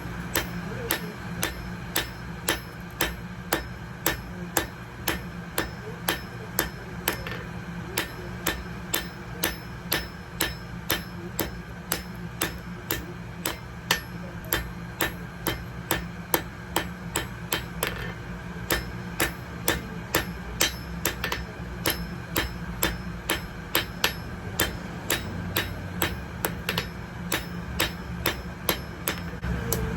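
Blacksmith's hammer striking metal on an anvil, blows falling evenly about twice a second, each with a short ring, over a steady low hum.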